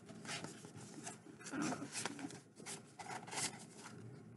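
Rustling from a printed book cover being unfolded and handled: a string of short, dry rustles, about half a dozen.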